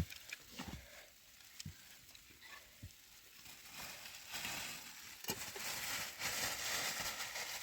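Food sizzling in a pan, with a few knocks and clinks of a utensil in the first half; the sizzle grows louder about four seconds in.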